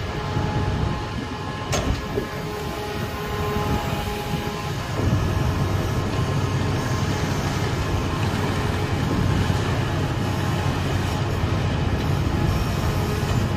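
Recycling truck's grapple crane at work, its engine and hydraulics running with a steady mechanical hum and whining tones as it lifts a bulk bag of recyclables. There is a sharp knock a couple of seconds in, and the machine runs louder from about five seconds in.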